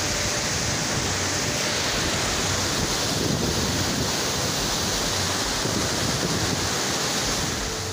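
Fast mountain river rushing and churning over rocks in whitewater, a steady full roar of water that eases off slightly near the end.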